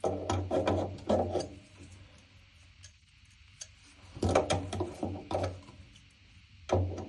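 Hand tools and metal fittings clicking and clattering against the washing machine in two short bursts, about a second and a half apart at the start and again past the middle, while the loose bolt behind the drum knock is worked on.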